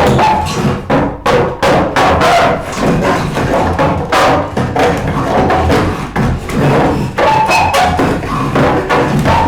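Music with drums and percussion: sharp drum hits over a sustained pitched backing.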